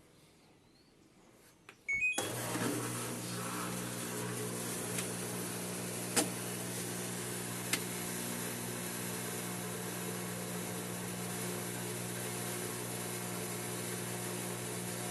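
A few short control-panel beeps, then an LG TurboDrum top-load washing machine starts its spin cycle: a steady motor and drum hum with a couple of small clicks. The machine is being checked for shaking too much when it spins.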